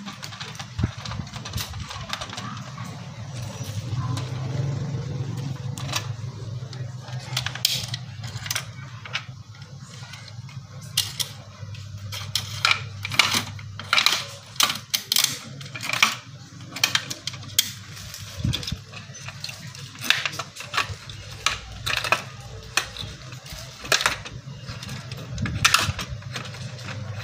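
Irregular clicks and light knocks of plastic and metal parts being handled as an LED headlight bulb is twisted out of a motorcycle's plastic headlight housing, with a steady low hum underneath.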